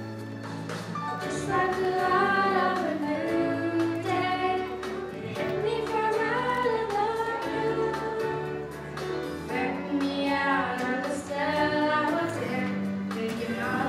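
Children's choir singing a song over instrumental backing music. The backing runs alone for about a second before the voices come in.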